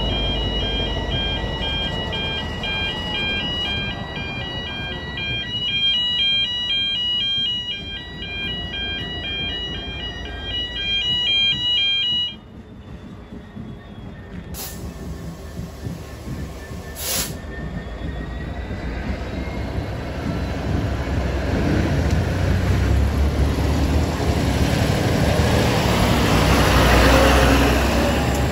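Level crossing warning alarm sounding in pulsing two-tone bursts over the rumble of a Class 66 diesel locomotive's two-stroke V12, then cutting off suddenly about twelve seconds in. A sharp click follows a few seconds later, and the locomotive's low engine rumble then builds, loudest near the end.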